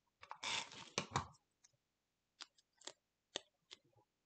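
Paper scraps rustling as they are handled on a tabletop for about the first second, followed by a handful of light, sharp clicks and taps.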